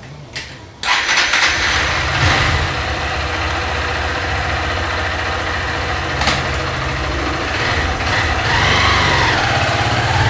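Small street motorcycle's engine started about a second in, then idling steadily.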